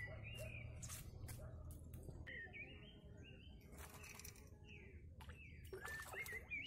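Small birds chirping and singing, faint, with a few sharp clicks.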